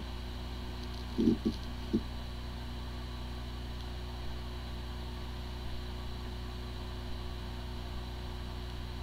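Hard drive spinning with a steady low hum, with a few brief louder sounds about one and two seconds in. The disks spin but the drive is not accessible, a symptom whose possible cause is disk firmware corruption.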